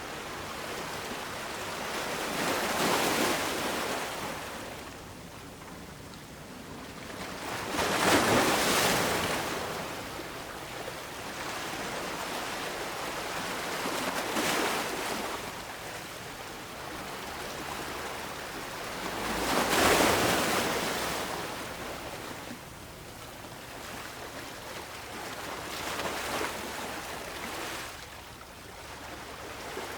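Ocean waves breaking and washing in, a steady rush of surf that swells every five or six seconds, with the two biggest waves about eight and twenty seconds in.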